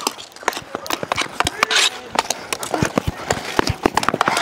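Rapid, irregular clacks and taps of ball hockey play on a sport court: sticks hitting the court and ball, and running footsteps, with faint voices mixed in.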